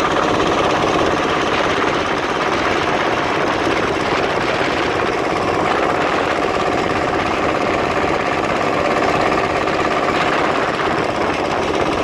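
Small tourist boat's engine running steadily under way, at an even pitch with no change in speed.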